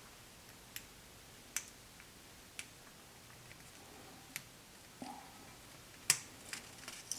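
Scattered light clicks and taps of small hand tools and parts as a screw is turned down to adjust a homemade foam-cutting tool, about five sharp clicks at irregular intervals, the loudest near the end.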